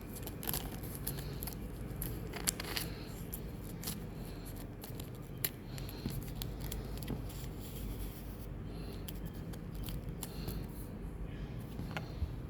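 Scissors snipping at Pokémon card packaging: a scattering of short, sharp clicks over a steady low hum.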